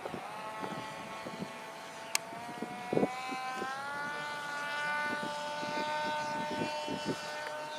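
Giant-scale Flex Innovations Cessna 170 RC plane in flight, its motor and propeller giving a steady whine that steps up in pitch twice as the throttle is opened in a climb. A few gusts of wind buffet the microphone.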